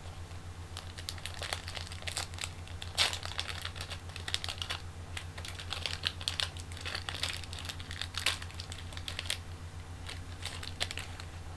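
Trading cards and their plastic packaging being handled: an irregular run of small clicks and crinkles, over a steady low hum.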